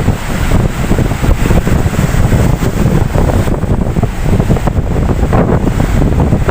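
Ocean waves washing continuously, with heavy wind buffeting on the microphone that adds a constant low rumble.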